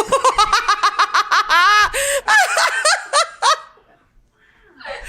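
High-pitched laughter: a fast run of short ha-ha pulses, then longer squealing laughs that rise and fall, dying away just before four seconds in.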